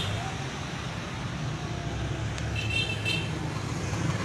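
Street traffic: vehicle engines running steadily, with a brief high-pitched tone about three seconds in.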